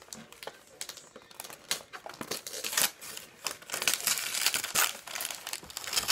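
Paper crinkling and tearing as a wrapped ornament is unwrapped by hand: scattered crackles at first, growing into a busier, louder run of rustling from about halfway.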